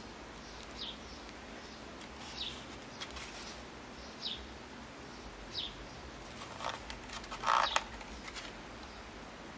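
Faint, short high chirps, bird-like, repeating every second or two over a low hiss, with a few brief rustling or handling sounds about two-thirds of the way through.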